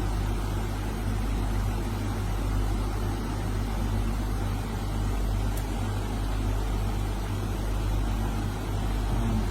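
Steady low hum with an even rumbling noise over it, unchanging throughout.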